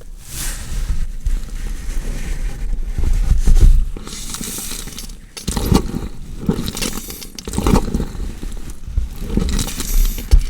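Sound effect of a body being dissected: a run of irregular, noisy cutting sounds in uneven bursts, loudest about three and a half seconds in.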